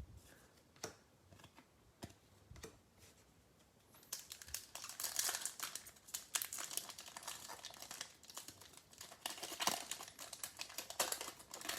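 Plastic wrapper of a Bowman baseball card pack crinkling as it is handled and opened, starting about four seconds in after a few faint clicks.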